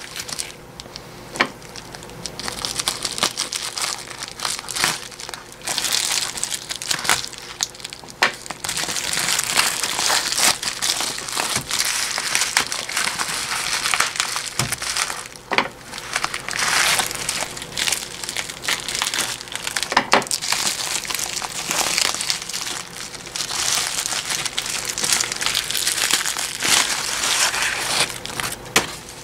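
Plastic bubble wrap crinkling and rustling as it is handled and pulled off a rolled canvas, with scattered sharp clicks.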